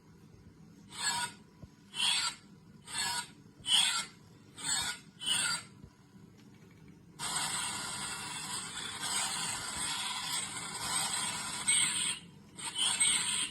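A series of short raspy scrapes, six of them about a second apart, then a longer continuous rasp lasting about five seconds, and two more short scrapes near the end.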